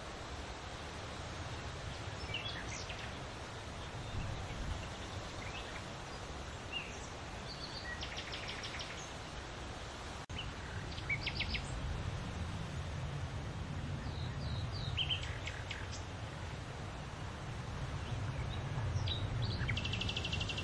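Birds singing in scattered chirps and short trills of quickly repeated notes, over a steady rustle of leaves in the wind. The wind's low rumble grows stronger in the second half.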